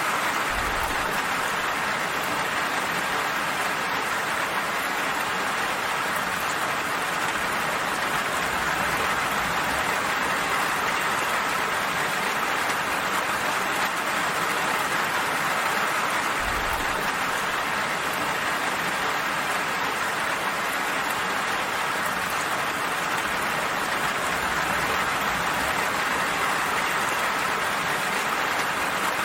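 Steady rain falling, an even, unbroken hiss of drops, with a few faint low rumbles underneath.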